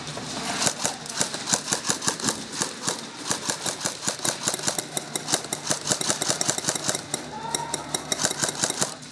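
Airsoft guns firing: a rapid, irregular run of sharp shots and clicks, several a second, with a faint steady hum beneath.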